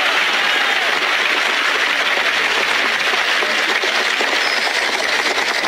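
Large crowd applauding and cheering, a steady wash of clapping with voices shouting through it.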